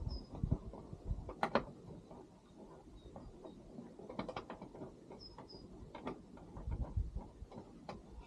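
Irregular metallic clicks and knocks from a spanner working a door hinge bolt into a car body while the door is fitted, with low handling bumps between them. Two faint bird chirps about five seconds in.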